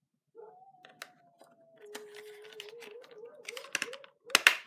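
Plastic clicks and rattles of a lighted rocker switch being handled and pressed into a square cutout in a plastic shifter bezel, ending in a loud sharp snap near the end as the switch's clips catch.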